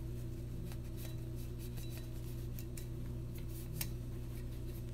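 A few faint, scattered clicks and taps of a pistol slide being handled and wiped with a cloth, over a steady low hum.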